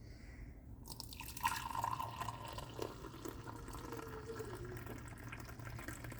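Liquid trickling and splashing, starting suddenly about a second in and busiest shortly after.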